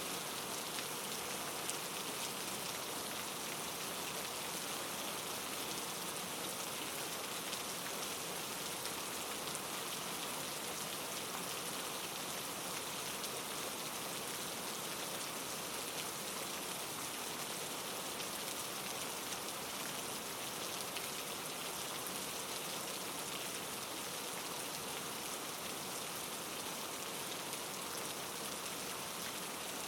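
Rain falling steadily: an even hiss with faint scattered drop ticks.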